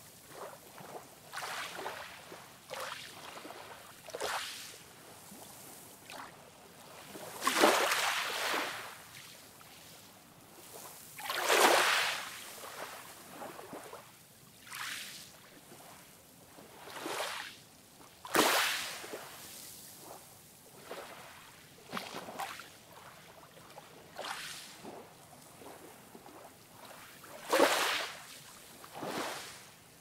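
Small ocean waves breaking and washing up a sandy beach, each a rush of surf that swells and fades every few seconds, a few of them noticeably louder than the rest.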